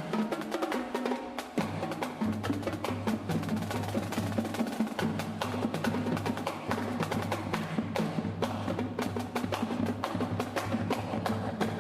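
Marching band playing a percussion-led passage: rapid, dense drum strokes with sharp clicking hits, joined about one and a half seconds in by a held low bass line.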